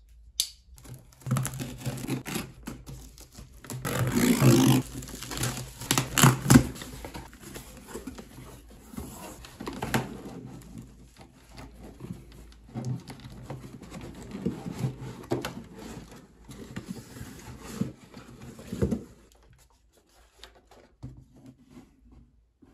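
Plastic stretch wrap being torn off a cardboard box and the box flaps pulled open: crinkling, tearing and cardboard rustling with sharp knocks, loudest in the first several seconds. Then the heavy VCR scraping against the cardboard as it is lifted out, the handling going quiet near the end.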